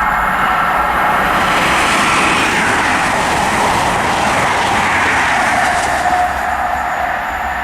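An InterCity 125 High Speed Train with Class 43 diesel power cars passes through the station at speed: a loud, steady rush of wheel, rail and engine noise with some clickety-clack over the rail joints.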